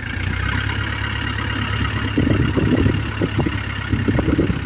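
Diesel engine of a tracked rice-hauling cart loaded with sacks of paddy, running under load as the cart crawls across the field. It is a steady low drone, with rougher, louder pulses from about two seconds in.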